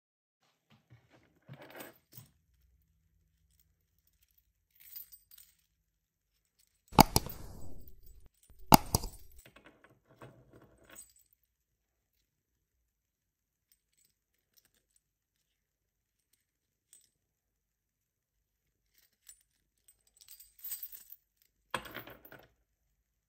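Metal ring sizer set, a bunch of steel gauge rings on a wire hoop, jangling and clinking as it is handled. Two sharp, loud clanks come about seven and nine seconds in, with a flurry of jangling again near the end and quiet gaps between.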